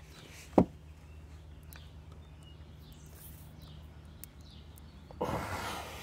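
A rubber plug being forced into a lawn mower tire with a T-handle insertion tool: one sharp knock about half a second in, then a rush of hissing noise near the end lasting under a second, over a steady low hum.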